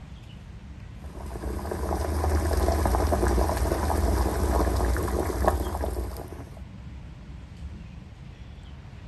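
Liquid being poured for about five seconds, swelling in and then tailing off.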